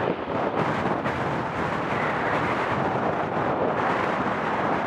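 Bombardier Dash 8 Q400 twin turboprop on its takeoff roll, engines and propellers giving a steady, loud noise, mixed with wind buffeting the microphone.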